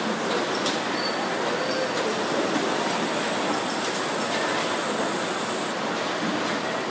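Steady machine noise of a robotic palletizing line, the robot arm and roller conveyors running, with a few light clicks in the first second and a thin, high hiss from about two and a half seconds in until nearly six seconds.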